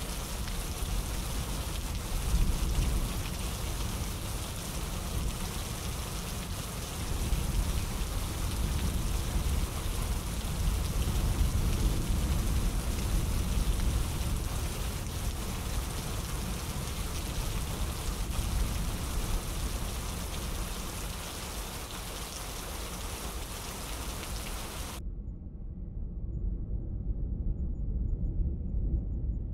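Steady rain falling, a dense even hiss over a strong low rumble. About 25 seconds in the rain hiss cuts off abruptly, leaving only the low rumble.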